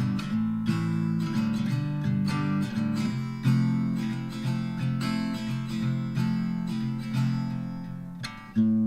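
Background music: an acoustic folk instrumental with strummed and plucked acoustic guitar. It dips briefly near the end and comes back in with a strong strum.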